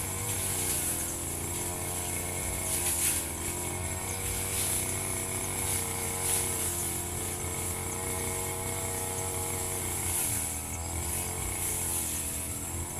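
Firman FGB 528 two-stroke brush cutter running continuously while cutting grass, its engine note steady with small shifts in speed.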